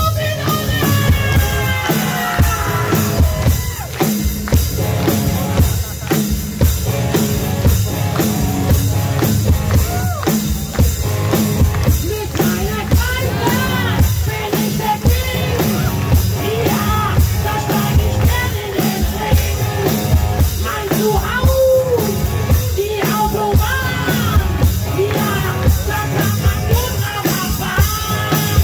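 Rock song with a male voice singing over a drum kit and band.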